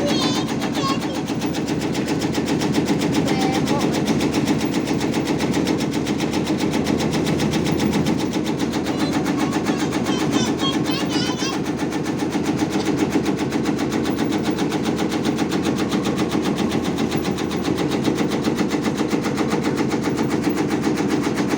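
Motorised tobacco-leaf slicing machine running steadily, its blade chopping in a fast, even rhythm.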